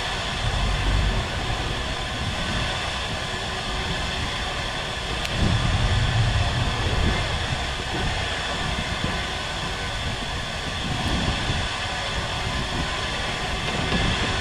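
Steady hum of a boat engine running at sea, under low gusts of wind buffeting the microphone that swell about five to seven seconds in.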